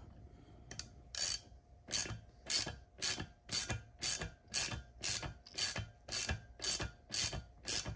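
Hand ratchet turning a titanium bolt into an injector port of a BMW N54 cylinder head, to block off the direct-injection port. About a second in, the pawl starts clicking in a short burst on each back-swing, about two bursts a second.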